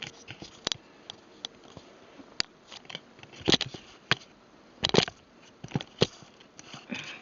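Scattered short clicks and taps from handling, a few sharper ones, over quiet room tone.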